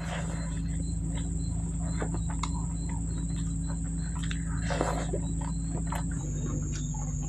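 Close-up eating sounds of rice and vegetable curry eaten by hand: irregular small clicks and smacks of chewing and lips, with soft squelches of fingers mixing rice on a plate, over a steady background hum.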